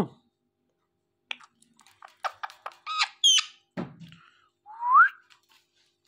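Indian ringneck parakeets giving a scattered run of short chirps and squawks, with a higher call a little past three seconds in, then a single rising whistle about five seconds in.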